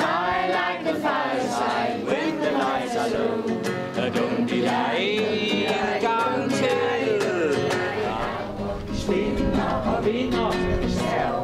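A mixed crowd of men's and women's voices singing a Danish song together in unison.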